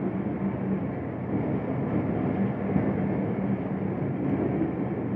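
Steady running noise of a passenger train heard from aboard while it moves along the track, an even rush with a faint low hum underneath.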